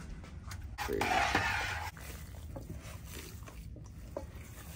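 A brief rush of noise about a second in, then faint wet squelching of hands kneading raw ground meat in a stainless steel bowl.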